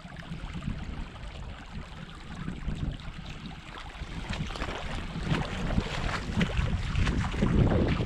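Creek water running, with wind buffeting the microphone; the gusty rumble gets louder over the second half.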